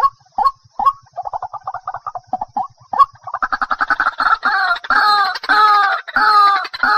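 White-breasted waterhen calling: short calls at about two or three a second, then a fast chatter from about one to three seconds in, then louder, drawn-out 'ruak' calls at about two a second.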